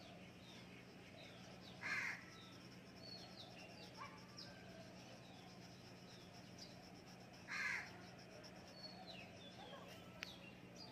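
A crow cawing twice, about five and a half seconds apart, with small birds chirping faintly in the background and a faint steady low hum.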